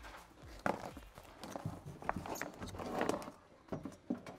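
Scattered light clicks, taps and rustling from gloved hands working inside an open truck door, laying butyl sound-deadening mat against the door's inner sheet metal.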